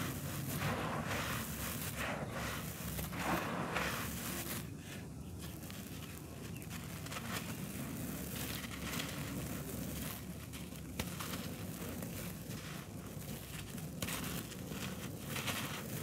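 Dry red dirt blocks crumbling in bare hands, the loose grainy soil trickling and pouring through the fingers onto a dusty floor in repeated gritty rustles.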